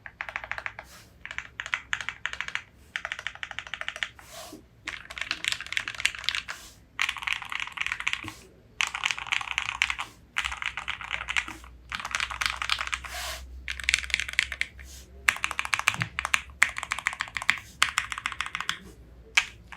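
Custom 65% mechanical keyboard (KBDFans Tofu65, polycarbonate plate, lubed Gateron Ink Black V2 linear switches, Cherry-profile keycaps) being typed on very fast. Dense runs of rapid keystrokes last a second or two each, with short pauses between them.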